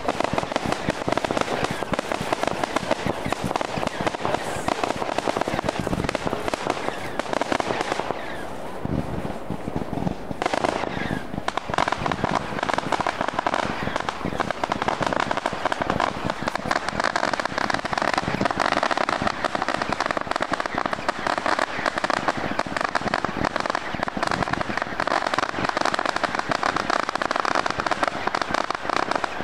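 Fireworks display: a dense, continuous run of rapid crackling and popping, easing briefly about a third of the way through before building again.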